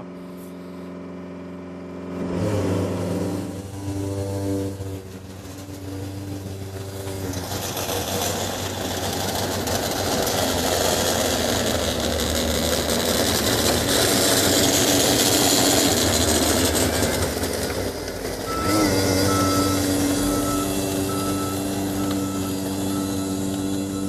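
A John Deere 332G skid steer's diesel engine driving a MUSKOX 22-78 hydraulic snowblower attachment. The engine revs up about two seconds in, and a loud rush of blowing snow builds and holds. The rush eases near the end, when a high, evenly repeated beeping joins in.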